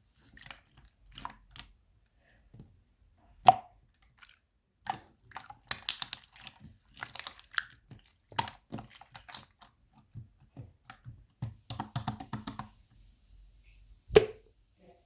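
Wet pops and sticky clicks of a soft jelly-like material being squished and pressed, coming in irregular clusters with a sharp snap about three and a half seconds in and another near the end.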